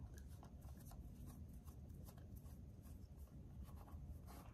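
Faint scratching and ticking of a small Phillips screwdriver turning out a tiny case screw.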